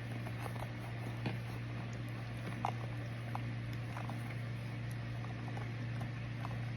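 Microwave oven running with a steady low hum, with irregular small crackles and pops from the contents drying inside.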